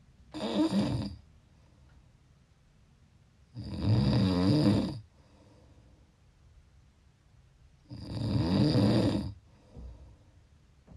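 A person snoring: three snores about four seconds apart, each lasting a second or so, the first one shorter.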